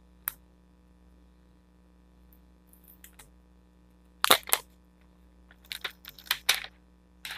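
Protective plastic film being peeled off a new Samsung Galaxy A20 smartphone: short crackling rustles, one just after the start, a few around four seconds in, a run of them around six seconds and one at the end.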